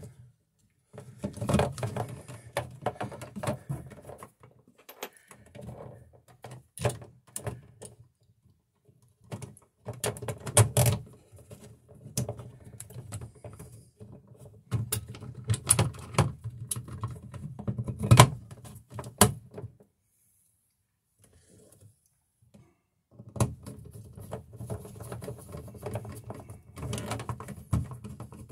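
Hands working a GFI receptacle into a plastic RV wall box: irregular clicking, rubbing and knocking of plastic and wire in short spells with pauses, with one sharper knock past the middle.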